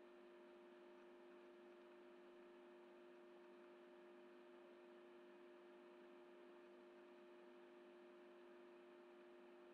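Near silence: a faint steady electrical hum over low hiss.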